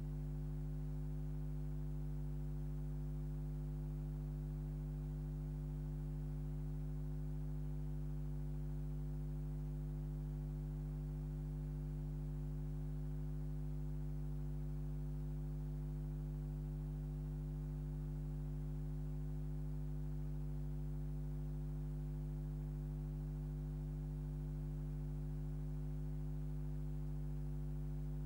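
Steady low electrical hum with a stack of buzzy overtones, unchanging in pitch and level.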